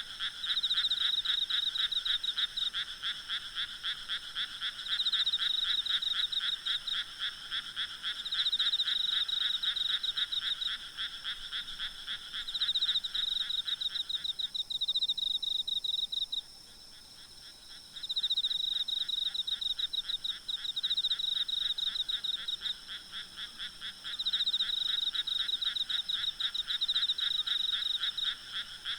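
Night chorus of frogs calling in rapid pulsed trills that swell about every four seconds. It thins out briefly about halfway through and then resumes. Under it runs a steady high-pitched drone of insects.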